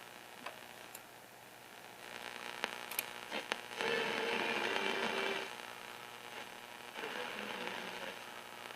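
Philco 7TPG AM push-button car radio hissing with static between stations, with a few sharp clicks about three seconds in and a louder stretch of static from about four to five and a half seconds. The reception is weak.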